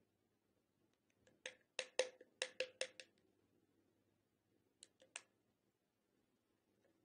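Sharp light clicks and taps from a small plastic bottle being handled and tipped out over a glass bowl: a quick run of about seven clicks from about a second and a half in, then three more about five seconds in.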